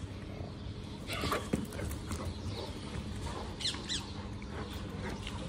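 Dogs at play, with a few short, faint whines about a second in and again near four seconds.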